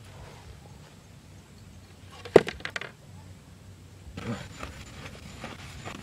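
Handling noise from a bamboo-and-basket bird trap being set: one sharp knock about two seconds in, a few lighter clicks after it, then rustling and scraping from about four seconds in.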